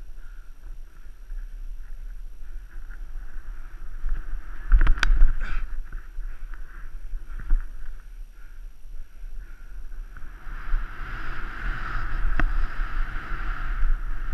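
Snow hissing and scraping under a rider descending powder, with wind buffeting the helmet camera's microphone. A loud thump about five seconds in, and the snow hiss grows louder for the last few seconds.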